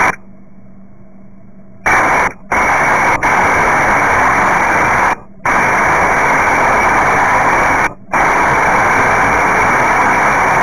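Spitfire Mk.IX cockpit noise in flight, its engine and the airflow heard through the pilot's headset intercom as a dense, steady rushing with a narrow radio sound. It is low for most of the first two seconds, then loud, and cuts out for a moment three times.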